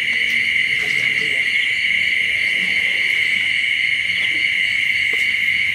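Steady chorus of night insects such as crickets: a continuous high trill at two pitches that does not let up, with a fainter pulsing chirp above it.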